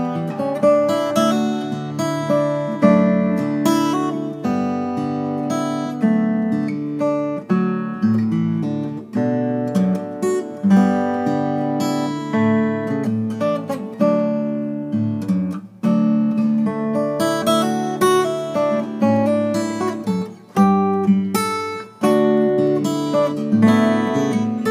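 Solo acoustic guitar playing a tune of strummed chords and plucked notes, each note ringing and dying away.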